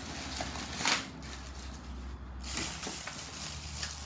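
Clear plastic packaging bag crinkling and rustling as parts are pulled out of it by hand, with a sharper crackle about a second in.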